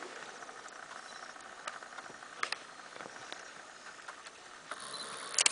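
Quiet outdoor ambience with a faint steady hiss and a few scattered clicks and knocks, including a louder cluster of clicks near the end.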